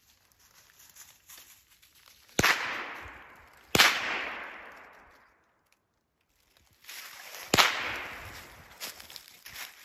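Three gunshots, the first two about a second and a half apart and the third about four seconds later, each echoing and dying away over a second or two.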